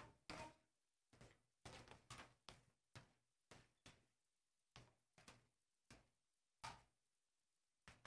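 Near silence broken by a series of faint short knocks, about two a second, at uneven spacing.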